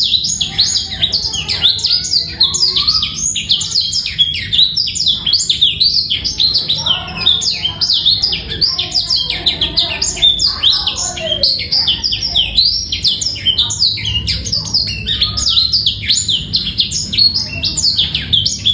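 Male black-throated canary (blackthroat) singing a continuous, fast twittering song of quick high notes, many of them falling, with no pauses.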